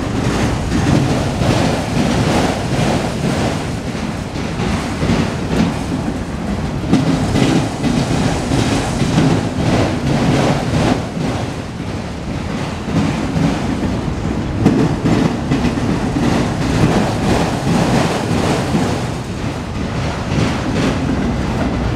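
Autorack freight cars of a CSX train rolling past as the train is shoved backwards, a steady rumble with the wheels clacking repeatedly over the rail joints.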